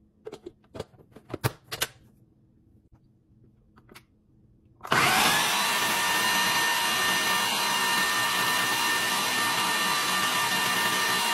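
A few light knocks and clicks, then about five seconds in a Ninja blender's motor starts suddenly and runs steadily at full speed with a steady whine, blending chickpeas, tahini and lemon juice into hummus.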